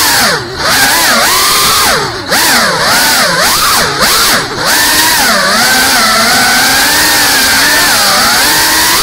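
GEPRC CineLog 35 cinewhoop FPV drone's brushless motors and ducted propellers whining, the pitch swooping up and down with the throttle. The sound drops off briefly a few times in the first five seconds, then holds a steadier pitch.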